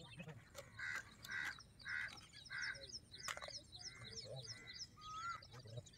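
Birds calling: a run of repeated calls, about two a second, pausing briefly midway, over fast, high chirping from other birds. A single sharp click about three seconds in.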